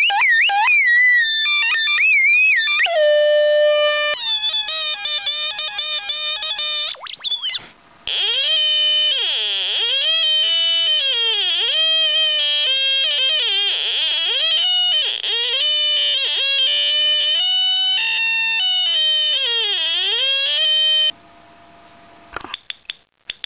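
Electronic siren-type oscillator of a Tandy/Radio Shack Science Fair electronics kit sounding through the kit's small speaker, its pitch warbling and swooping up and down as the controlling resistance changes, first a light-dependent resistor shaded by a hand, then the player's fingers on the probe wires. The tone breaks off briefly about eight seconds in and cuts off near the end, followed by a few faint clicks.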